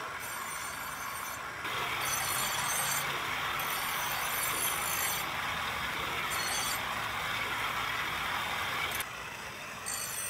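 Knife blade being ground on a pedal-driven grinding wheel: a steady rasping hiss of steel against the spinning wheel, louder from a couple of seconds in and dropping off near the end.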